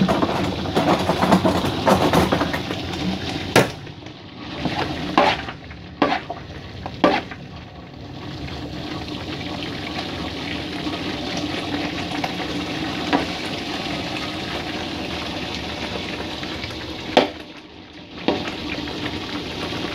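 Thick peanut sauce simmering in a wok on a low gas flame, a steady hiss, with a metal spatula or spoon clinking and scraping against the pan several times in the first few seconds and twice near the end.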